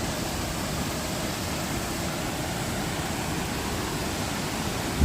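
Steady rushing of water from the gorge's stream and falls, an even noise without a break. A single short thump comes right at the end.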